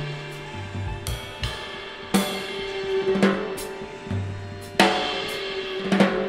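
Instrumental music: drums with ringing cymbal hits every second or so over held bass notes and a sustained tone.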